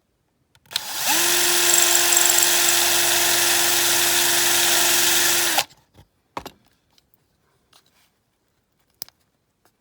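Small power drill spinning up, running at a steady pitch for about five seconds while drilling out a rivet in a die-cast metal toy car, then stopping abruptly; a few light clicks follow.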